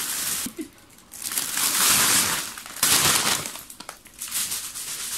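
A thin plastic carrier bag full of chip packets crinkling and rustling as it is shaken and rummaged through, in several loud bursts.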